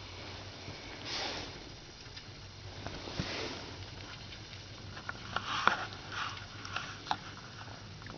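Pet rat sniffing close to the microphone in short hissy bursts, then a run of light clicks and taps about five to seven seconds in.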